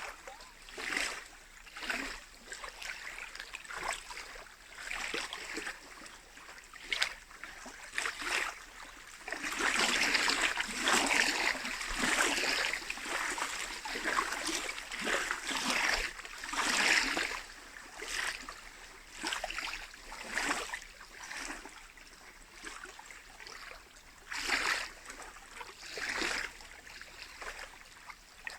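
Small lake waves lapping and splashing against the shore, coming in short repeated splashes about once a second, busier and louder for several seconds in the middle.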